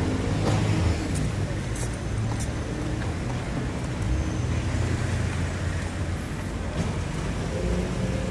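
Street ambience: steady road traffic with buses and cars running past, and indistinct voices of passers-by in the background.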